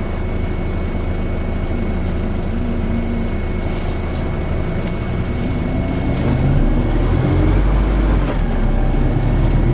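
Volvo B5LH hybrid bus running, with a steady high-pitched whine over a low drone that grows louder and heavier about six and a half seconds in. A few faint knocks come through along the way.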